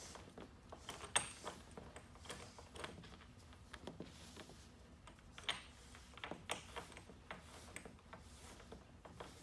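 Faint handling noise of a braided rope mecate being pulled through a leather slobber strap on a snaffle bit: rope and leather rustling with scattered light clicks, the sharpest about a second in.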